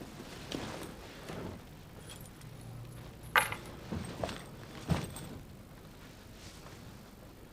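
A bag being handled and set down on a bed: a handful of short clicks and knocks, the sharpest a little over three seconds in and a few more over the next two seconds.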